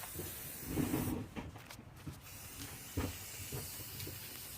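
Aerosol spray paint can spraying in long hissing bursts, with short breaks about a second in and just before two seconds, and a soft knock about three seconds in.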